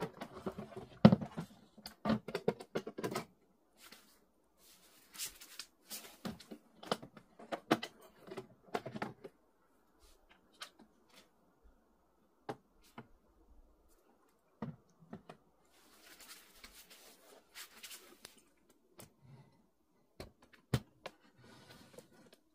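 Hard plastic parts of a Philips automatic espresso machine being handled and pulled out, the water tank and then the brew group. There are clustered clicks, knocks and rattles during the first several seconds, then scattered lighter clicks, and one sharp click near the end.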